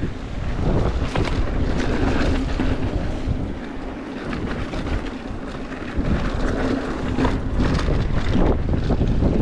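Wind buffeting the microphone over the rolling noise of mountain bike tyres on rock and gravel, with scattered short clicks and rattles from the bike. The low wind rumble eases for a couple of seconds in the middle, then comes back.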